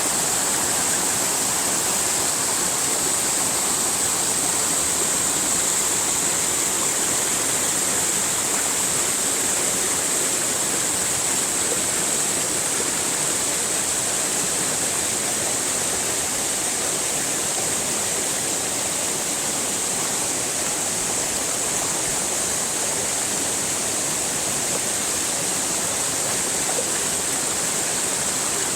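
Steady rushing of flowing water, a continuous hiss with no breaks or changes, brightest in the high range.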